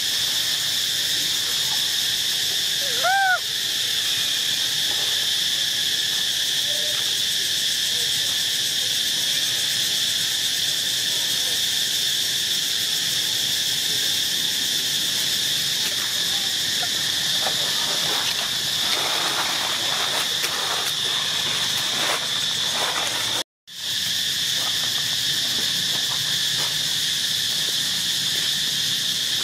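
Steady, dense insect chorus, a high shrill buzzing that holds an even pitch, with one short rising-and-falling call about three seconds in and a few faint crackles later. The sound cuts out for a moment about three-quarters of the way through.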